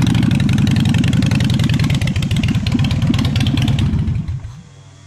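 Harley-Davidson Forty-Eight Sportster's air-cooled 1200 cc V-twin running loud through unbaffled straight drag pipes, its firing pulses heavy and uneven. The sound stops abruptly about four seconds in, leaving a faint hum.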